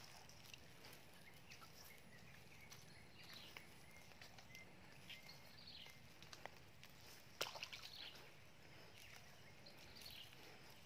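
Near silence: faint outdoor background with scattered soft ticks and rustles, and one sharper click about seven seconds in.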